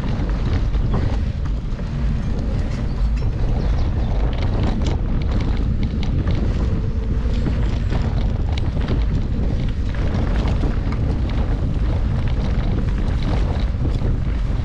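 Wind buffeting the microphone, with a steady clatter of small rattles and knocks from a mountain bike riding a rough trail.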